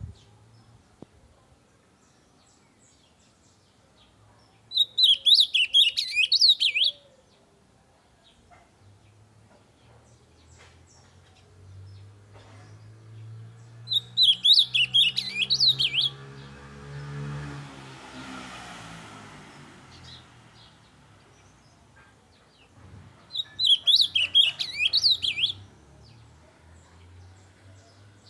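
Ultramarine grosbeak (azulão), a blue male, singing three short, rapid warbled phrases of about two seconds each, roughly nine seconds apart. A low droning sound swells and fades around the middle phrase.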